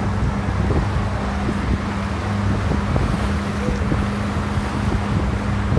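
Small open tour boat under way: its motor running with a steady hum, mixed with wind buffeting the microphone and water rushing past the hull.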